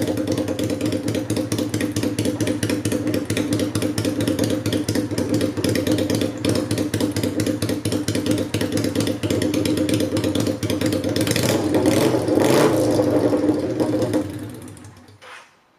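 Kawasaki Vulcan 400 Classic V-twin running on straight-through homemade shotgun pipes with no silencer, idling steadily with a loud, open exhaust note. The revs rise briefly a few seconds before the end, then the engine is switched off and dies away.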